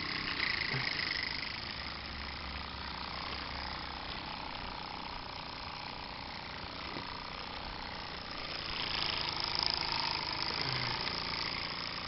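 David Auld Type 4 Mk3 live-steam model traction engine running under steam: a steady hiss of steam and exhaust, swelling a little about nine seconds in.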